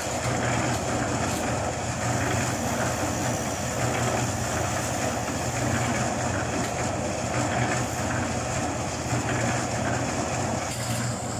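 Portable drum concrete mixer running steadily: a constant low hum under an even, rough churning noise.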